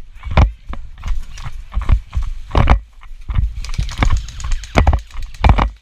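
Running footsteps on rough ground, a heavy thud about every two-thirds of a second, with gear and clothing rustling against the microphone.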